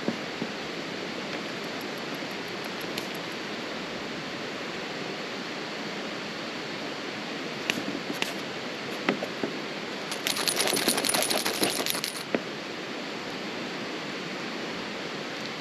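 Campfire burning in a fire pit: a steady hiss with now and then a sharp pop, and about ten seconds in a quick two-second run of crackles and clinks.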